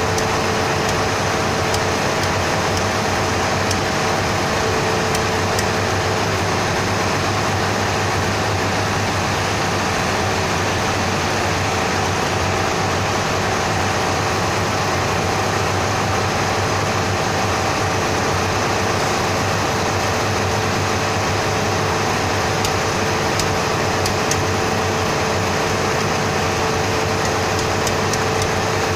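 Steady mechanical drone of running machinery, an even hum with a constant tone that does not change, with a few faint light ticks on top.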